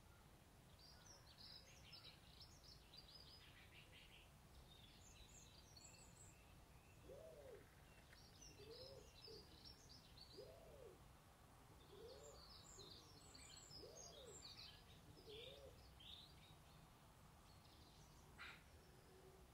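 Faint chirping and twittering of small birds in scattered clusters, with a run of about six soft, low, rising-and-falling hoots in the middle and a single sharp click near the end.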